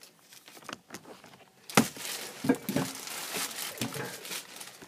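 Handling noise from a plastic blister-packed action figure on its card being moved about close to the microphone: a sudden rustle a little under two seconds in, then a few seconds of crinkling and rubbing with scattered sharp clicks.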